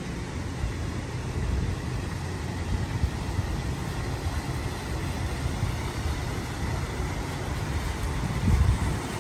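City street ambience: a steady low rumble of road traffic, swelling briefly near the end.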